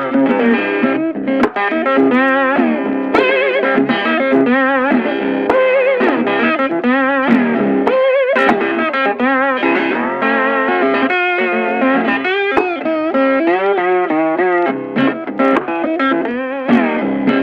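Background music: an electric guitar playing a melodic lead with vibrato over a steady accompaniment.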